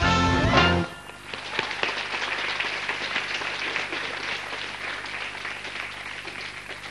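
Entrance music from the studio band stops about a second in, and a studio audience applauds, the clapping slowly dying down.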